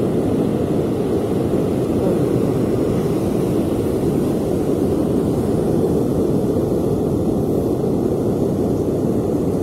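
Steady low roar of ocean surf breaking on the beach, with wind buffeting the microphone.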